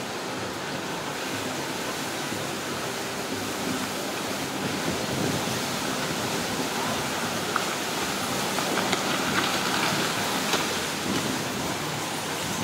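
Steady wash of choppy water lapping and splashing against shoreline rocks, a little louder in the middle.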